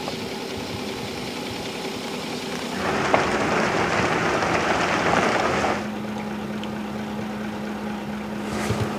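Vehicle engine running low and steady, with a louder stretch of rushing noise in the middle and a steady low hum in the last few seconds.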